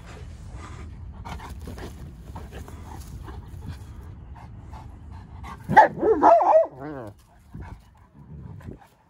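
Saint Bernards play-wrestling, with a low rumbling noise from the tussle. About six seconds in, one of the dogs lets out a loud bark that wavers in pitch for about a second.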